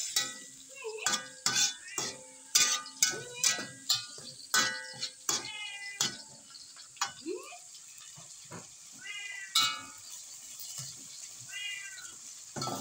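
Spoon knocking and clattering against a metal pot of snails in their shells as it is stirred: a quick run of sharp, ringing knocks through the first six seconds. A cat meows a few times, briefly, later on.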